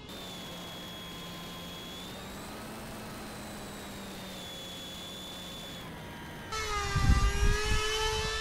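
Electric motors and propellers of a pusher-puller twin RC airplane whining steadily in flight. About six and a half seconds in, the whine turns louder and higher, with wind buffeting the microphone.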